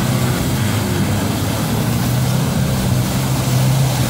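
Land Rover Defender engine running steadily as the truck pushes through a muddy creek, with water splashing and churning around the wheels.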